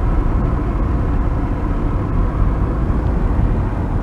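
Car driving: steady rumble of road and engine noise, heaviest in the low end.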